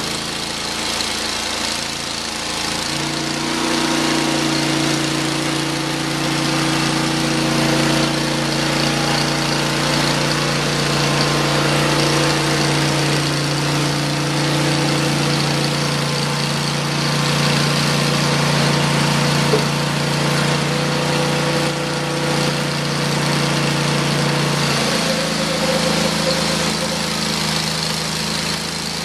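Engine of a Hud-Son Oscar 36 portable bandsaw mill running steadily while its band blade saws through a soft maple log. The engine note steps up about three seconds in and drops back down near the end.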